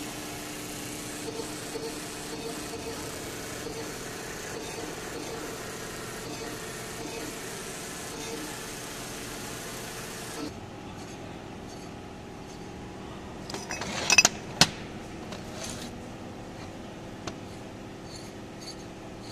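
Steady workshop machine hum with a low droning tone, which stops abruptly about halfway through. Then a few sharp metal clanks and knocks as the cast-iron pump housing is handled on the bench.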